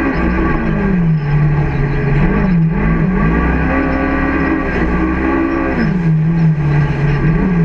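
Onboard sound of a Can-Am side-by-side driving hard on a rough sand track. The engine's pitch falls and rises several times as the throttle comes off and goes back on, staying high through the middle and dropping lower near the end, over a steady low rumble.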